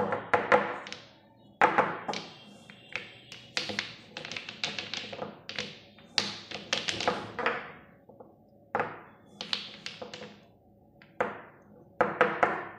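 Small plastic paint jars clattering and tapping against each other and the tabletop as they are slid around and pushed together, in irregular runs of quick knocks.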